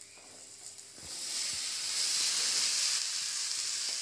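Chopped white gourd landing in hot oil and fried spice paste in a stainless steel kadai: a sizzling hiss starts about a second in and keeps going as the wet pieces fry.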